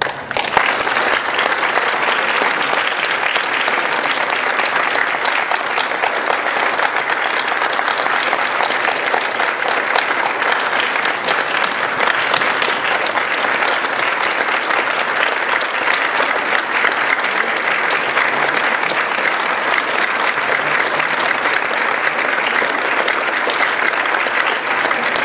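Audience applauding: a dense, even clatter of many hands clapping that starts suddenly and holds steady.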